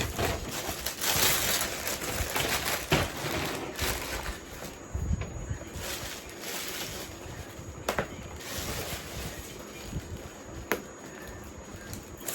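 Packaging being handled and unwrapped: a rustling, crinkling noise, loudest at the start, with a few sharp clicks or snaps along the way.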